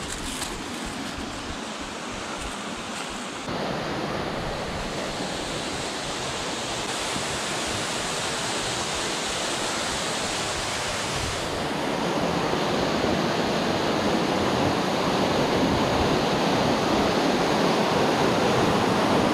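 Waterfall pouring into a pool: a steady rush of falling water that grows louder in two steps, about a third of the way in and again just past the middle.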